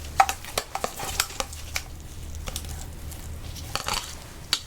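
Close-miked chewing: irregular crisp clicks and crunches, several a second, over a steady low hum.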